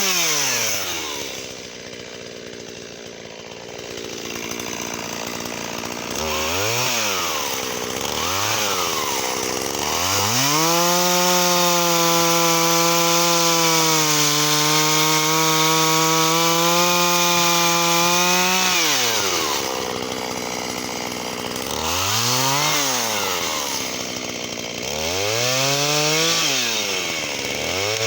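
Shindaiwa 488 two-stroke chainsaw cutting wattle. It idles, is blipped a couple of times, then is held at full throttle for about eight seconds in a cut, its pitch sagging a little under load midway. Near the end it is revved up and down three more times.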